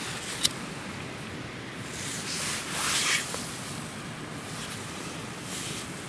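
Steady wind noise outdoors, with a single sharp click about half a second in, then brief rustling and scraping around two to three seconds in, as a small alcohol burner inside a perforated steel windscreen is being lit.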